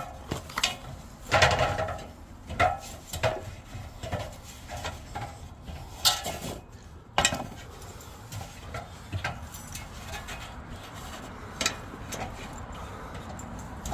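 Irregular metallic clinks, clicks and rattles of hand work on a heat pump unit, as the bad run capacitor is dealt with. They are thick in the first seven seconds and sparser after.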